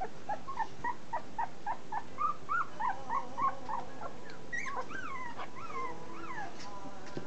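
Two-week-old Dutch Shepherd pups whimpering: a quick string of short squeaks, about three or four a second, then from about halfway a few longer whines that rise and fall.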